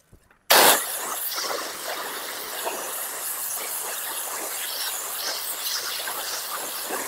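Pressure-washer wand with a white (40-degree) tip spraying a jet of water along the bottom of vinyl house siding. The spray starts suddenly about half a second in, loudest at its first hit, then runs as a steady rush of water.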